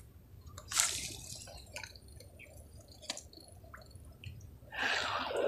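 Handling noise from a fishing rod and reel among leafy waterside plants: faint scattered clicks and ticks, a brief swish about a second in and a longer rustle of leaves near the end.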